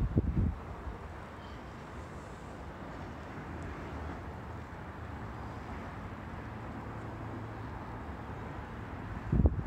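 Steady outdoor background noise with a low rumble, broken by short gusts of wind buffeting the microphone at the very start and again near the end.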